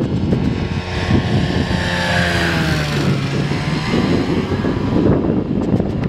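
Two-stroke Rotax 582 engine of a Murphy Renegade Spirit biplane at power as it flies past low in an aborted landing, its pitch dropping as it passes. Gusty wind rumbles on the microphone.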